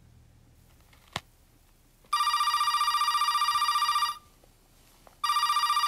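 Telephone ringing twice with an electronic warbling ring, each ring about two seconds long, after a short click about a second in.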